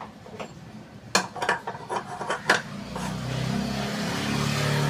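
Metal pan supports clatter and knock as they are set onto a two-burner gas stove, then from about three seconds the burners give a steady rushing roar at full flame, their low-flame fault cured by new jets.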